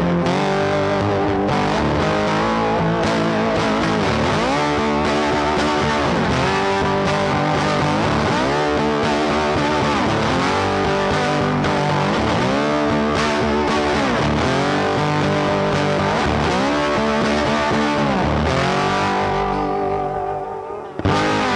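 Background rock music with distorted electric guitar, bending notes and a steady beat, dropping out briefly near the end before starting again.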